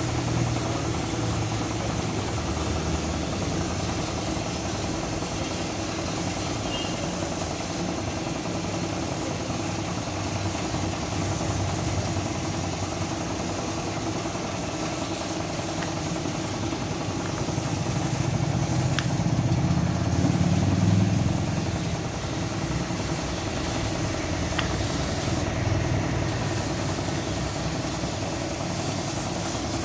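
Air compressor running steadily with the hiss of a spray gun painting a tractor wheel rim. The spray hiss stops briefly twice, about two-thirds of the way through and again a few seconds later, while the low drone swells louder around the first stop.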